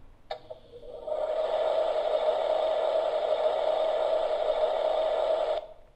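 Toy kitchen's electronic stove sound effect. A button click just after the start, then about a second in it plays a steady sizzling hiss through its small speaker, simulating a real stove, and cuts off sharply near the end.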